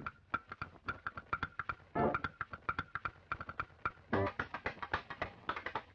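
Background music: a quick ticking percussion pattern with a louder pitched note about every two seconds.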